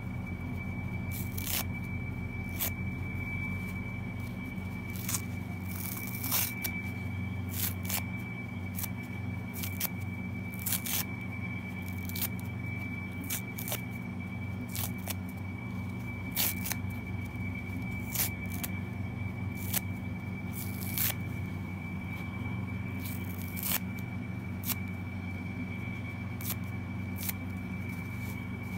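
Kitchen sponges torn apart by hand: foam and scouring pad ripping in short, irregular tears and crackles, several a few seconds apart, over a steady low hum and a thin high tone.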